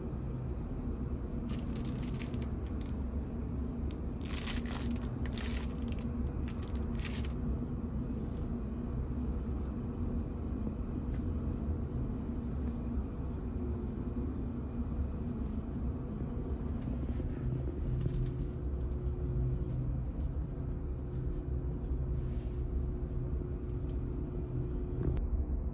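Steady low hum of a passenger ferry's onboard machinery and ventilation heard inside a small cabin, with faint steady tones. A few brief crinkles and rustles come in the first several seconds.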